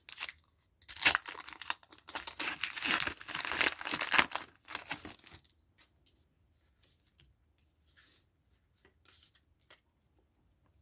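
A Pokémon TCG booster pack's foil wrapper being torn open and crinkled for about five seconds, then only a few faint light rustles as the cards are handled.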